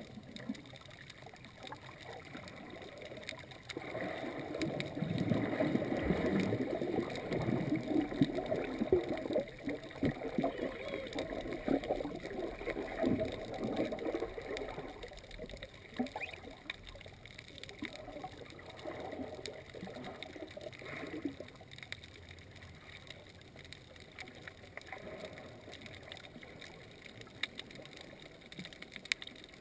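Water sloshing and churning heard from underwater, muffled through a camera housing. It swells for about ten seconds from about four seconds in as a snorkeller in fins swims close by, then dies back to a low wash with a few small knocks.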